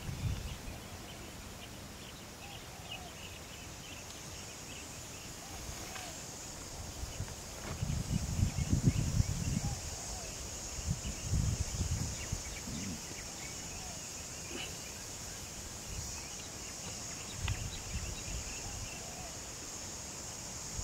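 Outdoor waterside ambience: a steady high hiss with faint, scattered bird chirps. Several low rumbling bursts come in, loudest about nine seconds in.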